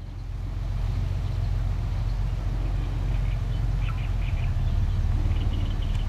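Steady low rumble of a motor engine running, with faint short high bird chirps from about halfway through.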